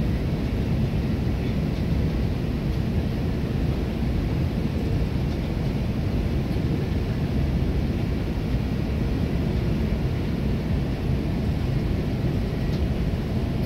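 Steady interior noise of an Airbus A330 on final approach: a constant low rumble of airflow and engines, with no distinct events.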